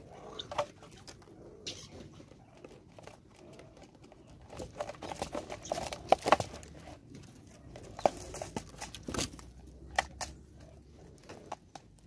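Helmeted guineafowl pecking at a plastic seed container and scuffling on a wooden stump: a run of sharp irregular taps and knocks. The taps are busiest and loudest in the middle, with a brief flurry of wings.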